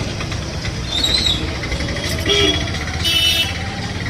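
Motorbike engine running with a steady low rumble, with a few short higher-pitched sounds over it, the loudest about three seconds in.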